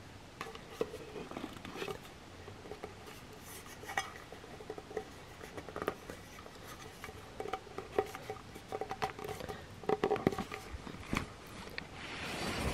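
Scattered small clicks, taps and scrapes of hands handling and opening a hexagonal G-Shock watch box on a fabric-covered surface, with a louder rustle near the end.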